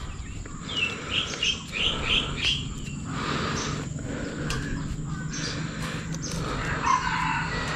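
A bird calling: a quick run of about six short, repeated high chirps, with scattered fainter chirps after it.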